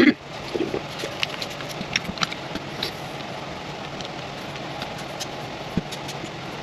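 Scattered light clicks and taps of a pistol slide and small metal tools being handled, with one louder knock at the very start, over a steady background hiss.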